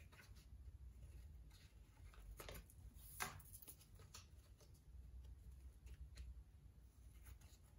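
Faint snips of scissors cutting through a sheet of craft foam: a few scattered soft clicks, the clearest about three seconds in.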